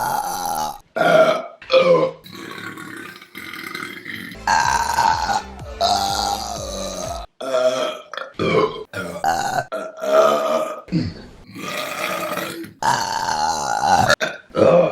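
Women burping, one burp after another from different clips cut hard against each other. Some are short and some are long, drawn-out belches.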